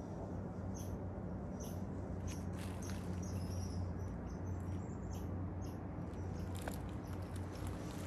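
Forest ambience: a low steady hum, with short high chirps repeating about once a second. From about two seconds in, scattered light clicks and rustles join in.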